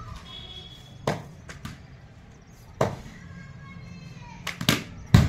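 A few isolated sharp knocks, then near the end two quick knocks followed by a loud crack of a cricket bat striking the ball, a big hit.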